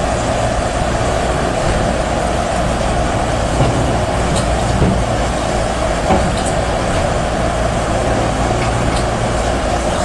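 Yonggong YGX260-7 crawler excavator's diesel engine running steadily while the machine works, with a few faint clicks over the engine noise.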